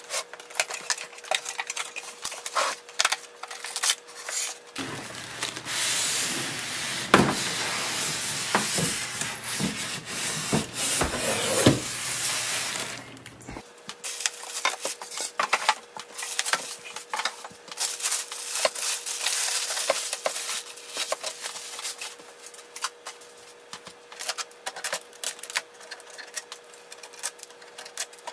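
Printer packaging being handled: cardboard box and foam packing knocked and rubbed and plastic wrap crinkling, with scattered clicks and rubs throughout and a louder, continuous stretch of rustling in the middle. A faint steady hum sits under the quieter parts.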